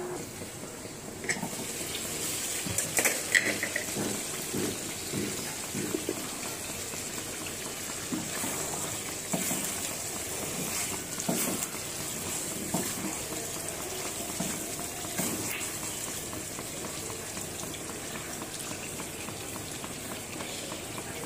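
Food bubbling on the stove: milk tea boiling in an aluminium pot, then a meat curry simmering in a karahi. A spatula stirs the curry and knocks against the pan now and then.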